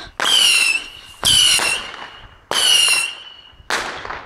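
Whistling fireworks going off: four sudden shots about a second and a quarter apart. The first three each carry a high whistle that dips slightly in pitch before fading.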